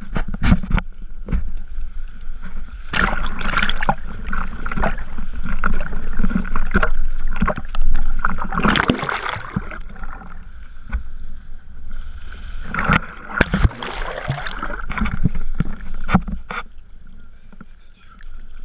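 Lake water splashing and sloshing right at the camera as a person wades and swims, coming in surges with knocks and a low rumble from the camera being handled.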